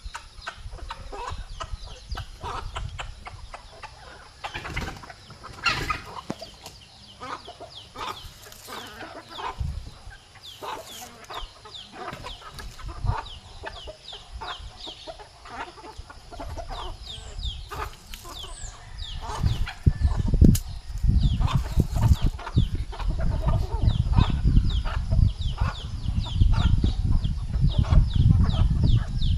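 A flock of chickens clucking and peeping while feeding, with many short high calls one after another. From about two-thirds of the way in, a loud low rumbling with knocks joins in.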